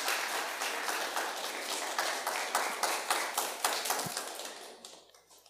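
Audience applauding, many hands clapping, dying away near the end. About four seconds in there is a dull thump from the headset microphone being handled as it is taken off.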